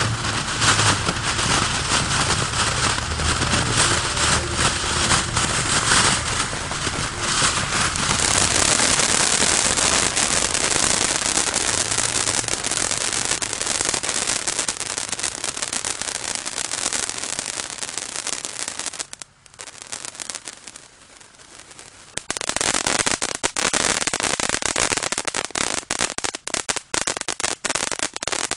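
Keystone Fireworks 'Maximum Overload' ground fountain burning with a loud, dense hiss of spraying sparks. The hiss dies down for a few seconds about nineteen seconds in, then picks up again as a dense crackle of sharp pops.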